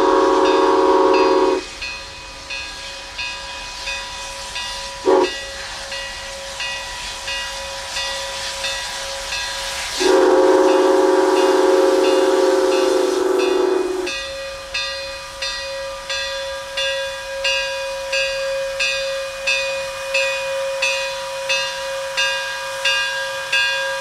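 Steam whistle of IAIS QJ-class 2-10-2 steam locomotive 6988 blowing long, short, long: a long blast at the start, a brief toot about five seconds in and another long blast from about ten to fourteen seconds. In between, the locomotive's exhaust chuffs evenly at about one and a half beats a second as it approaches.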